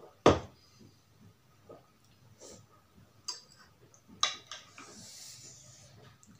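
An aluminium soda can set down on a table with one sharp knock, followed a few seconds later by lighter clicks of chopsticks against a bowl.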